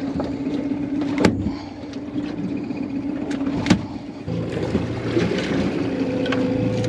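Boat motor running steadily, its tone changing about four seconds in, with two sharp knocks near the start and the middle.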